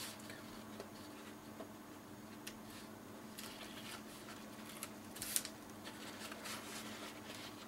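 Hands handling kraft cardstock and strips of double-sided tape: soft paper rustling and crinkling with small taps, the loudest crackle about five seconds in.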